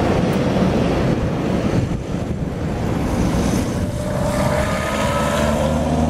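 Road traffic noise with wind on the microphone. About halfway through, a passing car's engine hum comes in, rising slightly in pitch.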